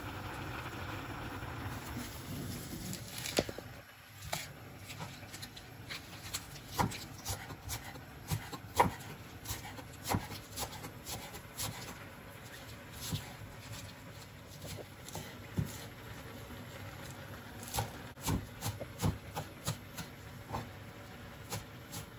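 A pot of green lentils boiling with a steady bubbling hiss for about the first four seconds. Then comes a knife chopping lettuce on a wooden cutting board: irregular sharp knocks of the blade against the wood, roughly one or two a second.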